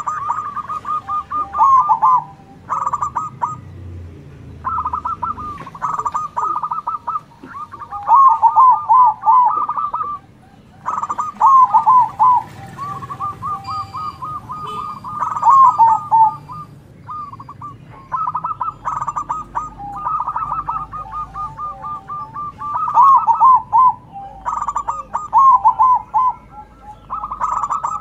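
Zebra doves (perkutut) singing, calling back and forth: phrase after phrase, each a quick run of short clipped coos ending in a few rolling, looping notes, repeating every two to three seconds with barely a break.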